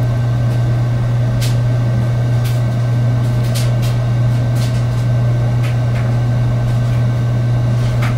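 Loud, steady low hum with a few faint, scattered clicks over it.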